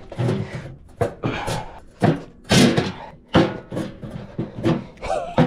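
Pry bar levering at the door of a small steel keypad safe, forcing it open: a run of sharp metal clunks, one or two a second.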